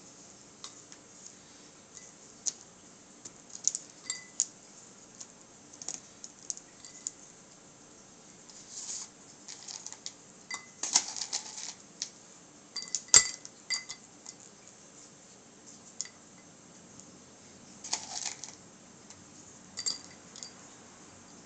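Pieces of leftover candle wax dropped into a small glass votive holder: scattered light clicks and taps on the glass, some with a short glassy ping, and one sharp knock about 13 seconds in.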